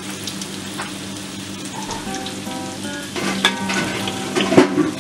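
Tempe cubes deep-frying in hot oil in a wok, a steady sizzle. A metal spatula stirs them and clinks against the wok a few times, loudest near the end.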